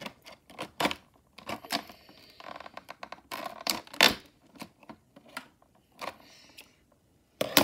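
Stiff clear plastic toy packaging crackling and clicking as it is handled and pulled at, in irregular snaps separated by short quiet gaps.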